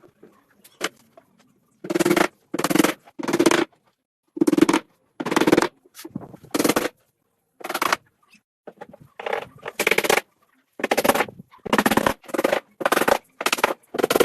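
A hand tool worked on wood in about a dozen short, noisy strokes at uneven gaps.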